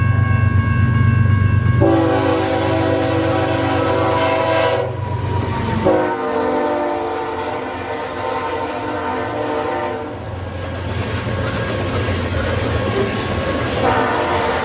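Diesel freight locomotive sounding its multi-chime air horn for a grade crossing in long blasts: one about two seconds in, a second from about six to ten seconds in, and another starting near the end. Under the horn runs the low rumble of the locomotive and the clatter of covered hopper cars rolling past.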